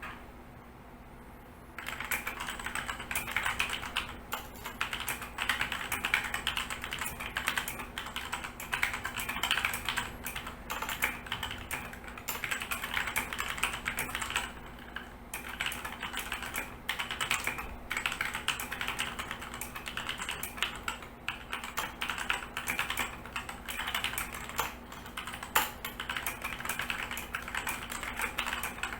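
Typing on a tenkeyless mechanical keyboard with stock, unlubed Otemu Red linear switches and double-shot ABS keycaps in a plastic case: fast, continuous key clacking that starts about two seconds in, with a short pause about halfway through.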